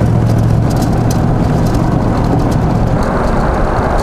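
Vehicle moving at highway speed, heard from inside: a steady low engine hum with tyre and road noise. About three seconds in, the rush of wind and road noise grows louder and the hum fades under it.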